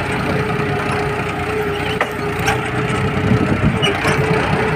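Diesel engine of a 42 hp John Deere tractor running steadily under load as it pulls a mouldboard plough, with a constant whine over its rumble. Scattered cracks and snaps of dry soil clods breaking as the plough turns the furrow.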